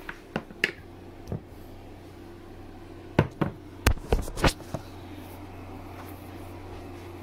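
Handling noise from a phone being gripped and moved: a few sharp clicks in the first second, then a louder cluster of knocks and taps midway, over a steady low hum.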